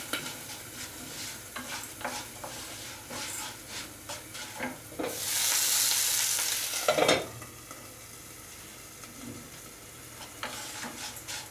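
Chicken wings sizzling in a frying pan while a utensil scrapes and turns them with light clicks. Midway a louder sizzling hiss swells for about two seconds and ends in a sharp metal clink, then the frying settles back to a quieter hiss.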